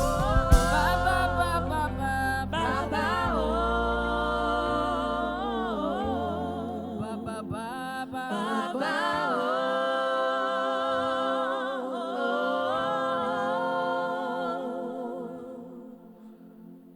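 Wordless worship singing: a solo voice hums and vocalises with vibrato over sustained low notes, then fades out near the end.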